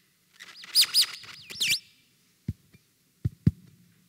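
Bird-like high-pitched chirps, rapid squeals sweeping up and down, lasting a little over a second, then three dull knocks in the second half.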